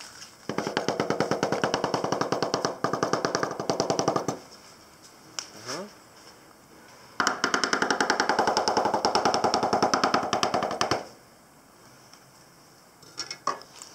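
Two runs of very rapid knife chopping on a cutting board, each lasting about four seconds, the second starting about seven seconds in. The taps come in a fast, even rhythm.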